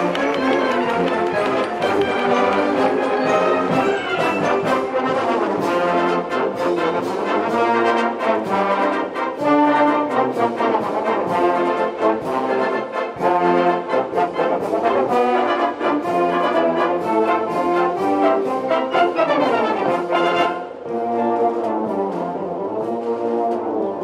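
Marching band playing: massed brass melody over a steady drum beat.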